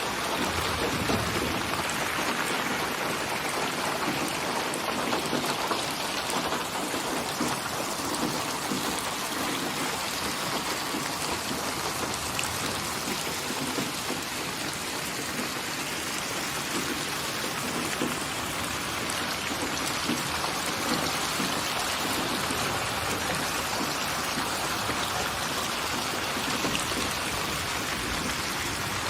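Steady rain falling, a dense even hiss of drops pattering on a surface, with no change in intensity.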